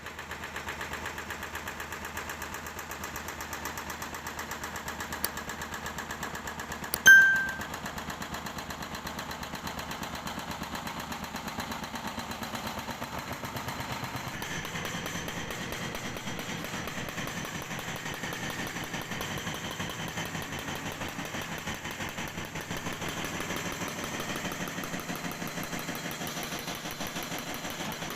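Hydraulic breaker (jackhammer) hammering rapidly and steadily into the ground while its engine runs. A sharp clang about a quarter of the way in rings briefly and is the loudest sound.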